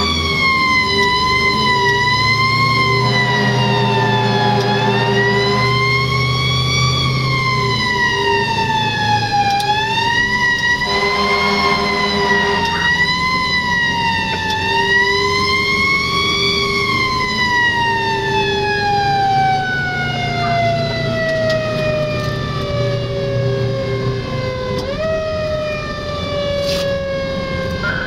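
Fire engine siren wailing, its pitch rising and falling every few seconds. About two-thirds of the way through it winds down in a long falling glide, gets a brief upward boost near the end, then keeps falling. The truck's engine runs underneath.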